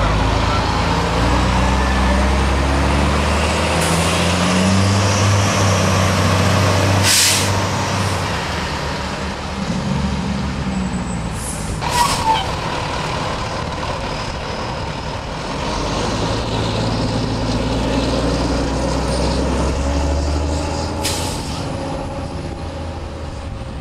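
Fire trucks' diesel engines running as the apparatus pull past, with short hisses of air brakes a few times.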